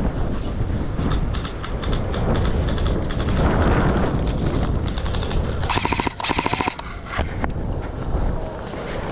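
Airsoft guns firing: scattered single shots early, then two rapid full-auto bursts of sharp clicks about six seconds in, over a steady low rumble on the microphone.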